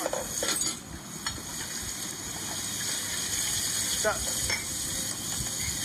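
Steady sizzling hiss of food frying, with a few light clicks of kitchenware, heard through a phone speaker.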